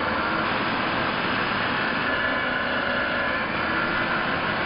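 Vevor magnetic drill press running under load, its annular cutter boring through the wall of a rectangular steel tube: a steady motor whine mixed with the grind of the cut.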